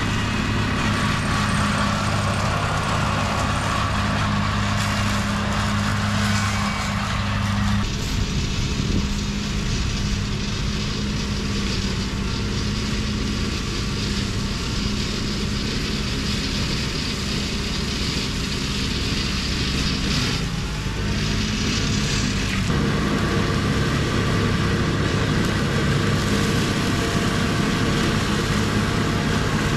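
Tractor with a boom-arm mower running steadily: a continuous engine hum with noise over it. The tone shifts abruptly about eight seconds in and again a little past twenty seconds.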